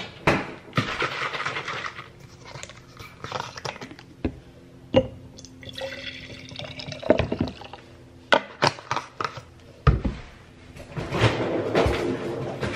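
Coffee poured into a glass carafe: splashing liquid in several spells, with sharp knocks and clinks of glass in between.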